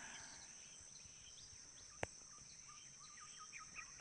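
Faint outdoor ambience: a steady high-pitched insect drone with many short chirps of birds, and a single sharp click about two seconds in.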